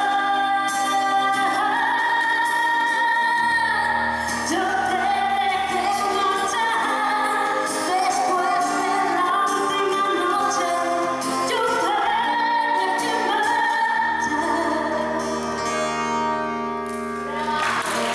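An acoustic duo performing a song live: sung vocals held on long notes over acoustic instrumental accompaniment with a bass line. Applause starts right at the end.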